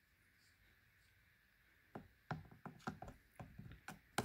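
Hard plastic seat switch cover clicking and knocking against the door panel as it is fitted by hand: quiet at first, then a quick run of small sharp clicks from about two seconds in.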